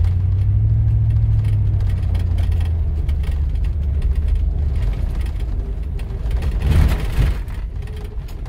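Suburban's engine running, heard from inside the cab as it drives off mud: a low drone that is strongest over the first five seconds and then eases. A short rush of noise comes about seven seconds in.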